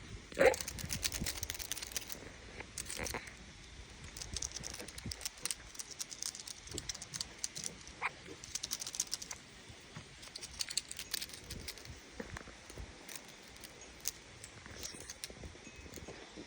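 Dry leaves rustling and crackling in irregular bursts of short clicks.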